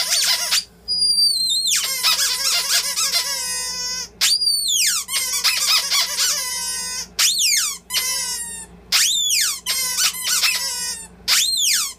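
Rubber lion squeaky toy squeezed over and over, giving a run of high squeals that each slide down in pitch, in bursts with short gaps between them.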